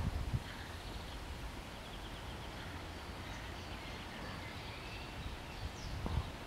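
Outdoor ambience: faint distant songbirds chirping and trilling over a low steady rumble, with a couple of soft knocks near the start.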